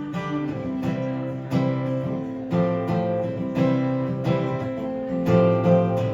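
Acoustic guitar strumming chords in a steady rhythm, played without vocals between sung lines of a song.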